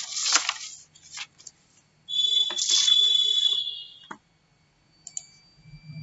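A few sharp clicks, then about two seconds in a bright ringing chime that holds for roughly two seconds and fades, followed by another click.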